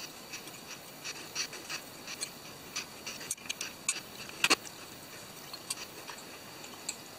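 Scattered light clicks and small scrapes of hands fitting the camera's small mounting screws into a carbon-fibre drone frame, with one sharper click about four and a half seconds in.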